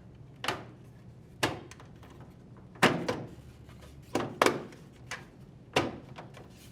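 LG washer's plastic control panel being pushed into its grooves and snapped into place: a string of about eight sharp clicks and knocks at irregular intervals.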